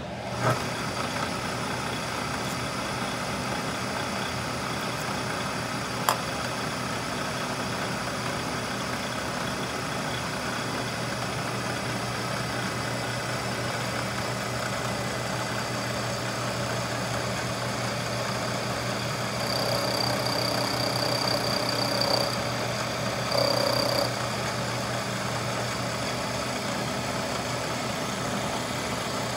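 Small milling machine starting up and running steadily while an end mill takes another pass around the hex flats of a muzzleloader breech plug. A louder, higher whine comes in twice about two-thirds of the way through, for about two seconds and then about one, as the cutter bites into the metal.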